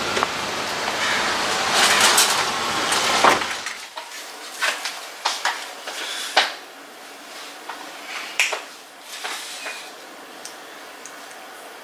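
Outdoor background noise with paper grocery bags rustling in an open car boot. Then quieter room sound with scattered light knocks and clinks of bottles and jars handled on a kitchen counter.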